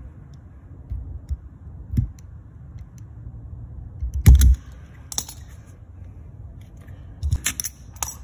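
Sporadic light clicks and knocks as an old, worn rubber bushing from a Stihl pole saw is cut off its metal ring with a razor blade, with a louder thump about four seconds in and a quick run of clicks near the end.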